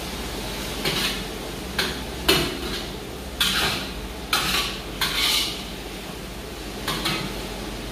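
Metal ladle scraping and clanking against a wok while stir-frying, in irregular strokes, with the loudest scrapes between about three and five and a half seconds in.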